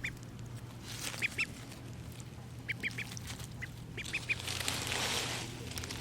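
Cayuga duckling peeping: short high peeps in quick runs of two or three, repeated several times. Near the end a rustling, scratching noise rises.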